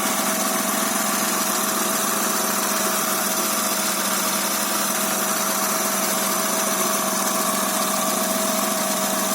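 Honda Accord's 3.0-litre V6 idling steadily and smoothly just after a head-gasket rebuild, with an exhaust leak that the owner thinks needs a gasket.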